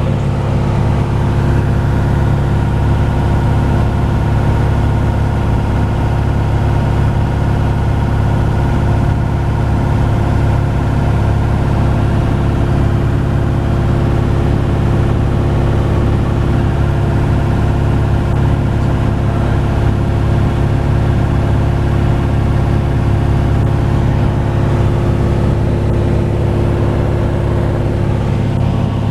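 Light aircraft's engine and propeller running steadily, heard from inside the cockpit in flight.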